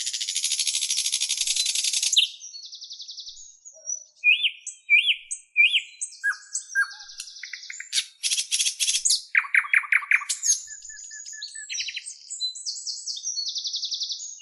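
Small songbird chirping and singing: a long rapid buzzy trill for about the first two seconds, then a varied string of short chirps, rising notes and quick trills.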